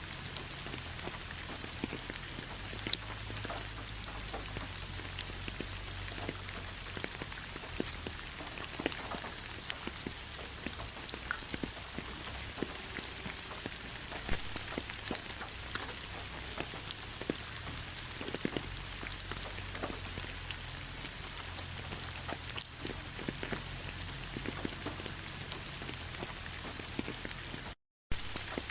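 Rain falling on fallen autumn leaves: a steady hiss peppered with many separate drop ticks. It cuts out for a moment near the end.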